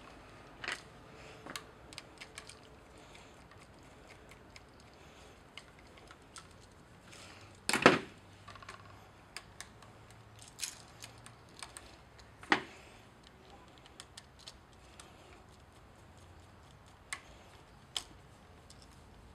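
Scattered small clicks and taps of copper wires being hooked onto a single-pole light switch's screw terminals and tightened with a screwdriver, with one louder clack about eight seconds in.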